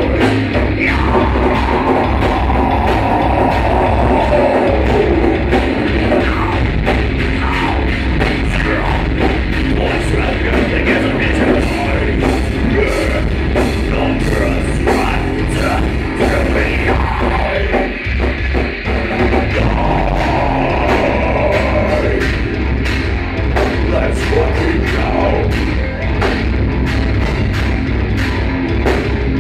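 Heavy metal band playing live: electric guitars, bass and drum kit, dipping briefly about eighteen seconds in.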